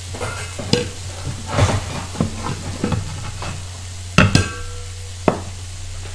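Metal kitchen utensils clanking and knocking irregularly as a ladle is searched for. One loud clank about four seconds in rings briefly. Under it are a steady low hum and the faint sizzle of chilli paste frying in a wok.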